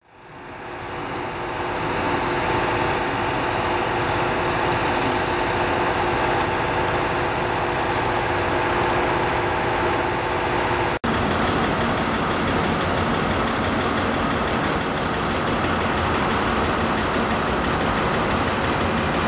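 KiHa 183 series diesel railcars idling at a platform: a steady engine drone with several held tones, fading in at the start. After a sudden break about eleven seconds in, a steady rumble continues with the tones weaker.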